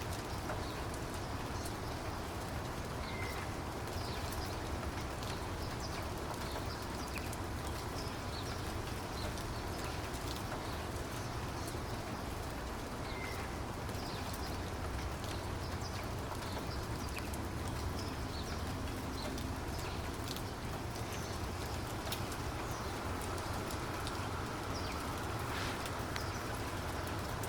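Steady rain with many separate drops ticking, and a bird chirping briefly twice.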